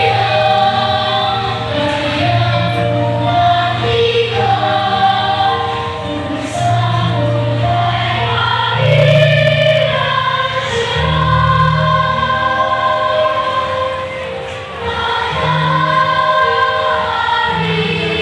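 A choir singing a song, in long held notes that change pitch together.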